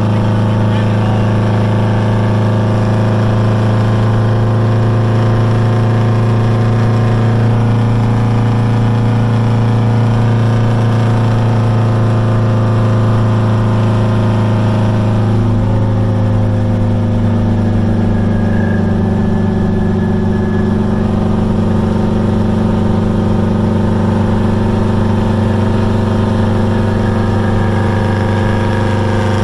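V8 diesel semi-truck engine running under way, heard from inside the cab; the engine note changes about halfway through.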